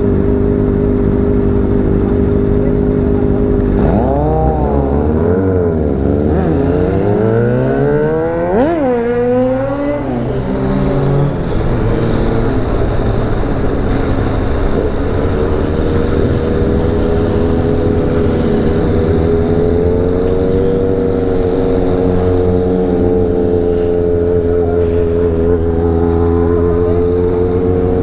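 Motorcycle engines run steadily at a stop. About four seconds in they rev and accelerate away, the pitch rising and dropping several times as they go up through the gears. After about ten seconds they settle into a steady cruising note with a slowly rising and falling pitch.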